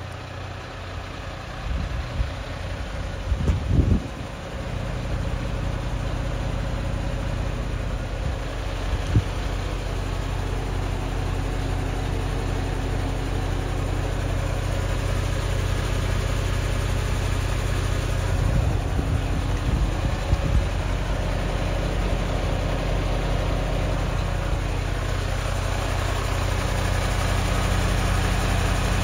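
Mercedes-Benz Atego 1530's four-cylinder diesel engine idling steadily, growing gradually louder, with a few low thumps about three to four seconds in.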